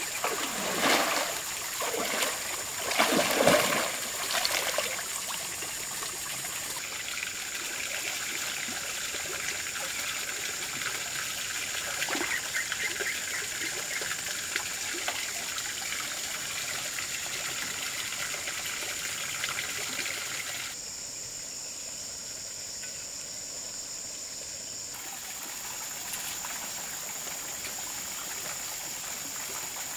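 Water sloshing and splashing in several loud strokes over the first five seconds as a hand net is swept through a muddy pond by a person wading in it. After that comes a steady trickle of water with a thin high whine above it.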